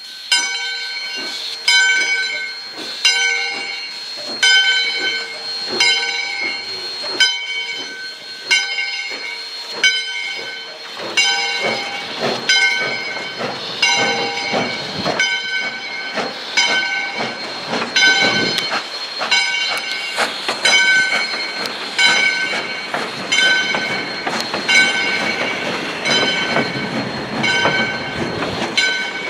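Steam locomotive bell ringing in a slow, steady rhythm, about one stroke every second and a quarter, as the train pulls out. From about eleven seconds in, the rumble and clatter of passenger coaches rolling past joins it.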